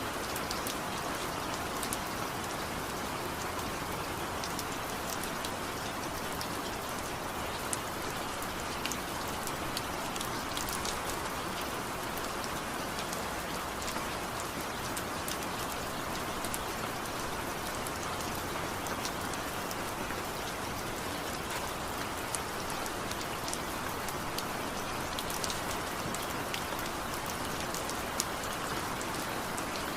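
Steady rain falling, a constant hiss with individual drops ticking sharply throughout.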